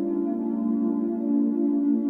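Background ambient music: soft synthesizer pads holding sustained chords.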